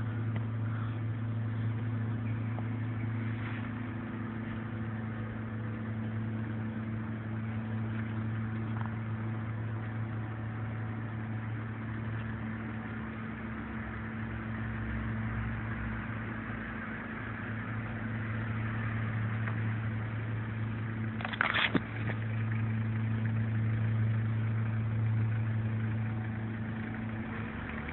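A steady low motor hum, with a short rattle about three quarters of the way through.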